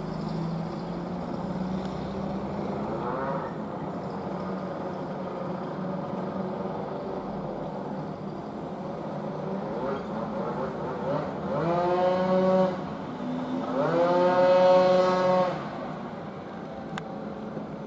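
Steady street traffic noise, with a vehicle engine speeding up and holding a steady pitch twice, about two-thirds of the way in; the second rise is the louder.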